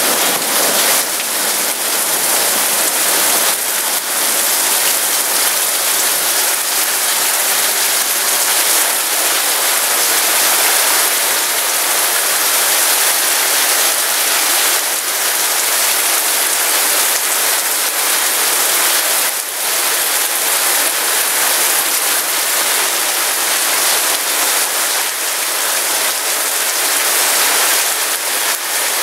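Heavy thunderstorm rain pouring down, a dense steady hiss.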